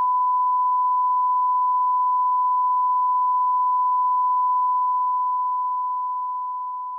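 A steady, pure 1 kHz test tone: the reference line-up tone that goes with colour bars. It holds one unchanging pitch and starts to fade slowly about two-thirds of the way through.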